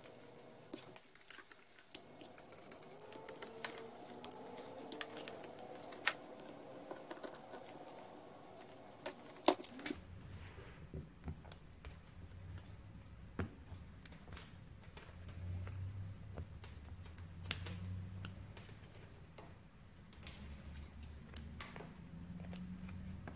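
Faint handling sounds of an outboard stop switch being reassembled: scattered small clicks and taps as a pick works the rubber boot back over the plastic switch body.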